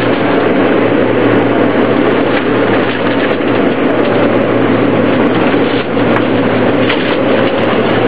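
Interior noise of a New York City Subway R160A-2 car: the train's steady running noise on the rails with a low, even hum.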